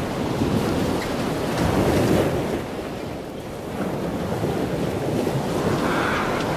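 Wind buffeting the microphone, a rumbling rush that swells and eases in gusts.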